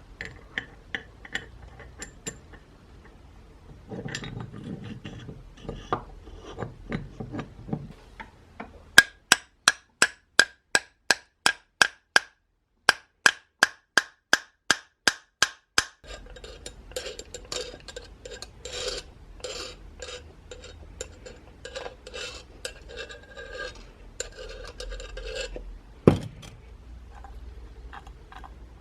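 Small metal tool-work sounds: first a run of sharp, evenly spaced clicks, about three a second, then rubbing and scraping with scattered clicks and one louder knock near the end.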